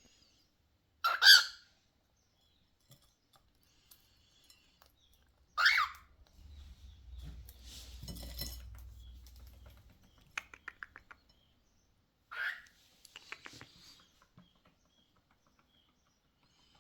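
Cockatiel giving three short, loud calls, the first about a second in and the loudest, the next two about five and eleven seconds later. Between the calls there is a low rumble and short runs of quick clicks.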